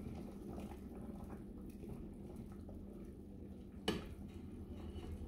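Plastic ladle stirring and scooping broth in a metal pot, with soft liquid sounds and one sharp knock against the pot about four seconds in, over a steady low hum.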